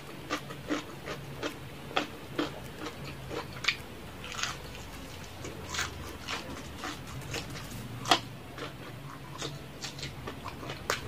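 Close-miked eating sounds: wet chewing, crunching of fried chicken and lip smacks, in an irregular run of short clicks, with one louder crunch about eight seconds in.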